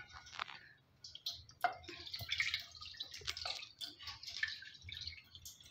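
Milk poured from a steel bowl into a non-stick frying pan, splashing and trickling unevenly in bursts, with a few sharp taps.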